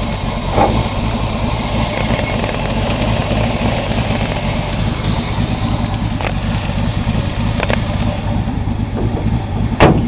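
Ford 302 5.0L V8 with a GT40 kit, out of a 1995 Mustang Cobra and fitted to a 1986 Ford Thunderbird, idling steadily with an even pulsing rumble. A few light clicks and one sharp knock come near the end.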